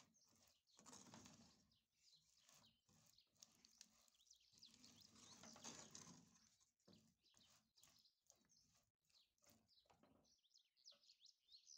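Faint scraping and rattling as a wooden spoon stirs caramel-coated roasted peanuts in a stainless steel pot, in uneven strokes that ease off near the end.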